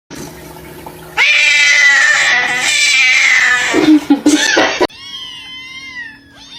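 A cat yowling loudly in one long, drawn-out cry lasting about two and a half seconds, followed by a shorter, lower yowl. Then several softer meows from a cat.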